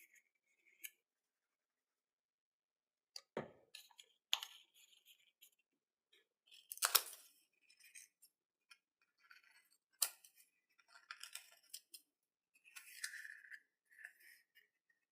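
Paper being handled, folded and twisted into an origami rocket: scattered short crinkles and crackles with pauses between them, the loudest about seven seconds in.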